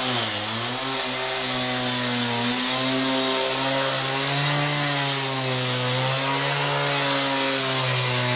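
Disc cutter (cut-off saw) cutting through a concrete floor. It runs loud and continuously with a strong gritty hiss over the motor's hum, and the motor's pitch sags briefly under load about half a second in, then holds steady.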